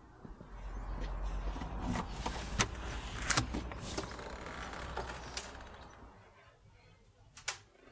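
Keys jangling and a series of sharp clicks as a key and handle work a front-door lock and the door is opened, over a low rumble that fades about six seconds in. One more sharp click comes near the end.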